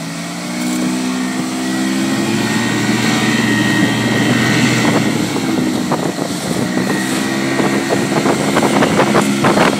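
Motorboat engine running steadily under way while towing a tube, its pitch and loudness rising about half a second in as the boat speeds up, with water splashing and rushing from the wake behind.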